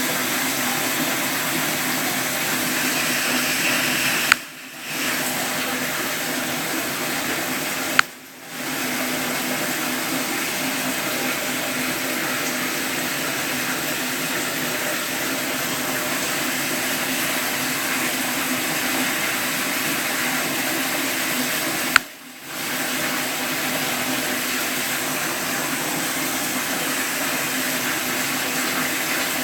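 Steady rushing water. Three sharp clicks cut in, about four, eight and twenty-two seconds in, and after each the water drops away for about half a second before coming back.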